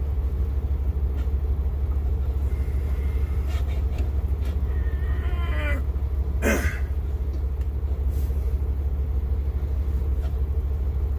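Steady low rumble of an idling truck engine, with a few faint clicks from cutters working on a steak bone and a short falling voice-like sound about six seconds in.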